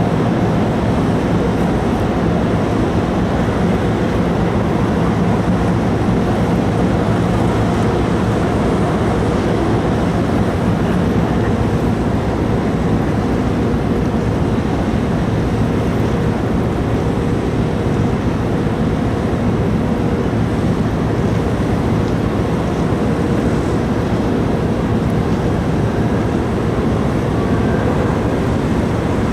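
Steady low rumble and hum of a large car ferry's engines and machinery, unchanging throughout.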